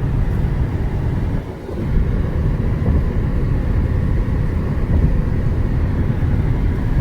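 Steady low rumble of road and engine noise inside a car cruising at highway speed, dipping briefly about a second and a half in.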